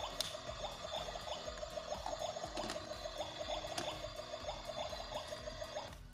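Electronic cooking sound effect from a toy kitchen stove's small speaker: a steady bubbling sizzle meant to sound like a real stove, cutting off suddenly near the end.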